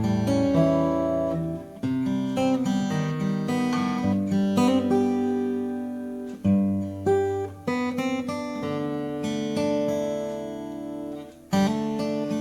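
Taylor PS14ce acoustic guitar being played: chords and single notes ring out and sustain, with new chords struck after a few brief pauses.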